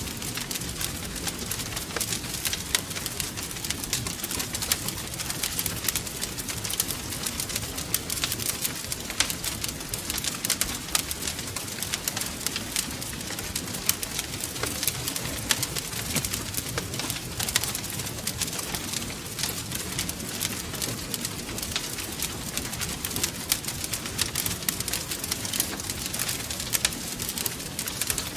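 Wood fire crackling: a constant stream of sharp snaps and pops over a low, steady rumble of burning.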